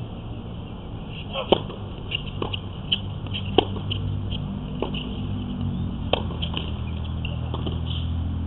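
Tennis rally: sharp pocks of the ball off racket strings and the court, about half a dozen roughly a second apart, stopping after about six seconds, over a steady low hum.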